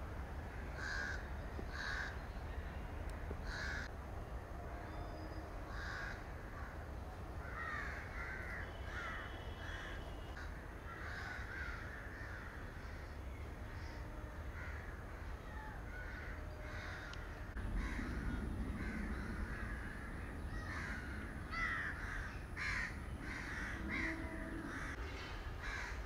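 Crows cawing over and over, many short calls scattered through, over a steady low rumble.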